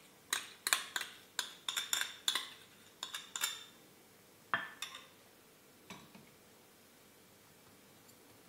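A metal spoon clinking against a glass mixing bowl while stirring cake batter: a quick run of clinks that stops about three and a half seconds in, then one sharper knock and a fainter one.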